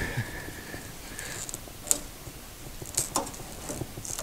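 A segmented link V-belt being worked by hand onto the pulleys of a thickness planer: scattered light clicks and clacks of the belt links, the loudest about two and three seconds in.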